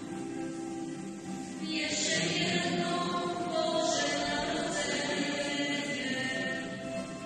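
A small group of women's voices and a man's voice singing a Christmas carol, with a triangle struck lightly about two seconds in and again about two seconds later.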